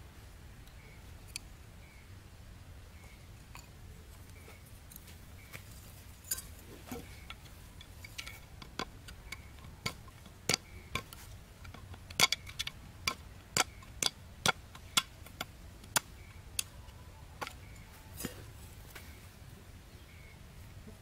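A machete knocking on a bamboo stake: a run of sharp, hard knocks, about a dozen, spaced about half a second apart, loudest in the middle of the run.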